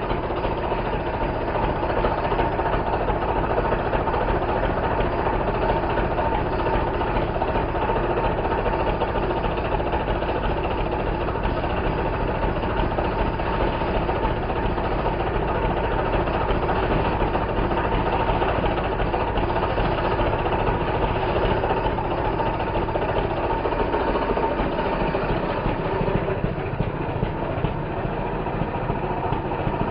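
Husqvarna 359 two-stroke chainsaw running steadily, with its sound changing in the last few seconds.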